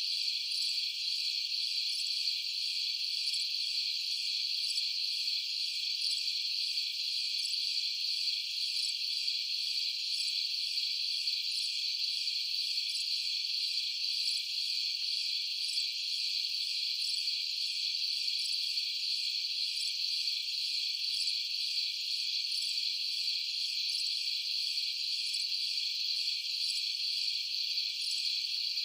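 Night insects, such as crickets, in a steady, dense chorus of high-pitched trilling that never breaks.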